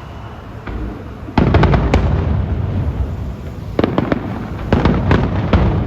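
Aerial fireworks exploding: a loud boom about a second and a half in, followed by a quick run of sharp cracks, then more bangs in the second half.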